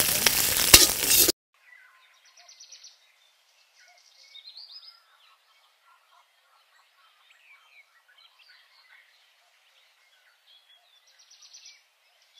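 Mustard seeds, dals, chillies and curry leaves sizzling in hot oil in an iron kadai, with a couple of ladle knocks against the pan. The sizzle cuts off suddenly about a second in, leaving only faint bird calls, with a short trill twice.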